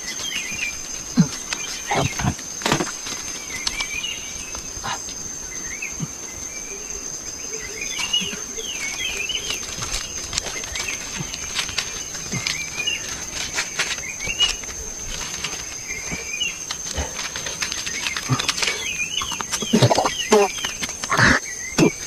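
Forest ambience: a steady high-pitched insect drone under birds chirping again and again, with the rustle and crackle of leafy branches and dry leaf litter being handled close by.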